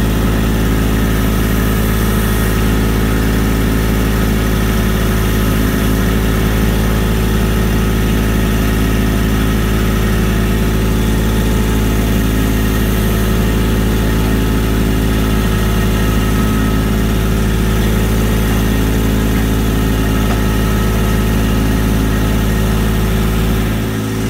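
Mini skid-steer loader's engine running steadily at a constant speed while it carries pallets of concrete block on its forks.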